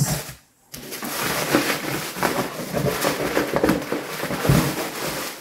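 Rustling and crinkling of packaging, with many small irregular crackles and taps: bubble wrap, tissue paper and a cardboard gift box being handled and searched through.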